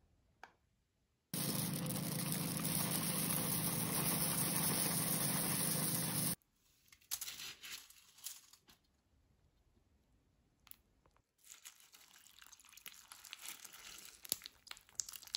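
A steady mechanical hum with hiss runs for about five seconds and cuts off abruptly. Then frozen mixed berries are tipped from a plastic bowl onto dry puffed rice cereal with a brief clatter, and near the end milk is poured over the cereal and berries, pattering and splashing.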